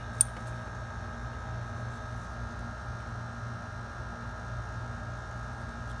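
A steady low electrical hum, with one sharp click about a quarter of a second in.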